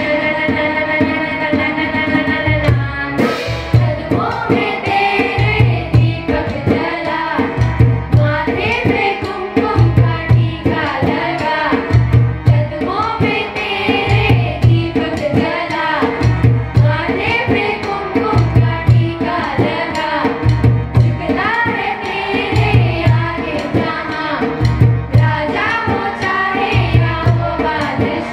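A group of children singing a devotional song to Ram into microphones, over instrumental accompaniment with a steady, repeating drum beat.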